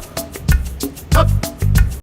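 Background music with a steady, lilting beat: bass notes and light percussion hits, with no vocals.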